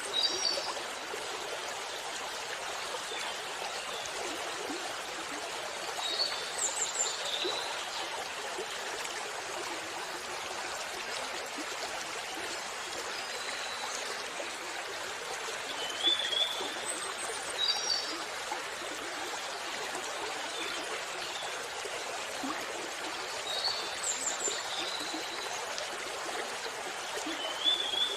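A waterfall rushing steadily, with short high chirps coming in small clusters every several seconds over it.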